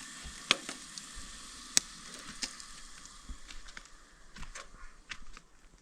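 Food frying in a pan on a camp stove burner: a steady sizzle with a few sharp pops, thinning out to scattered crackles in the second half.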